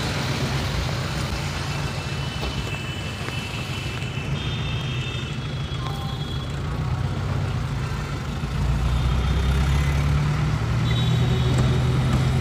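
Road traffic: vehicle engines running with a steady low drone that grows louder about two-thirds of the way through. A few thin, high held tones sound on top.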